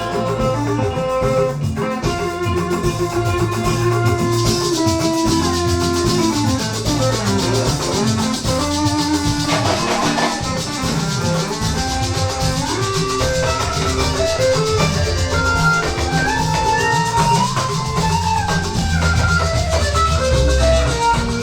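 Church band playing an instrumental passage of a hymn: a melody line with guitar and a shaker rattling over drums and a steady bass.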